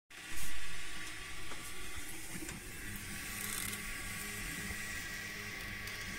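FDM 3D printer running: stepper motors hum at low pitches that change in steps as the print head moves, over a steady fan hiss. A brief loud burst comes about half a second in.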